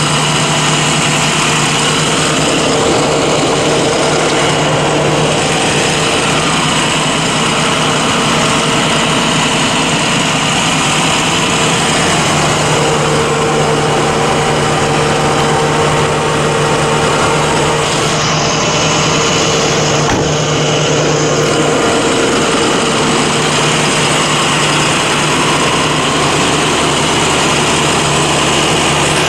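A Ford ambulance idling, its engine running steadily at a constant pitch.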